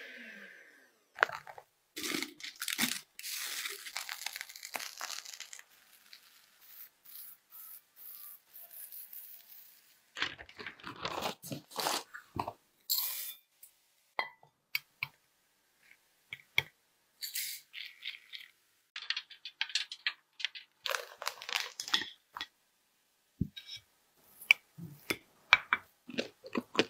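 Electric hand mixer whipping cream in a glass bowl for about the first second, then a run of short, irregular kitchen handling noises and clicks from utensils, bowls and ingredients. Near the end, a knife cuts into the cake's crisp white-chocolate shell.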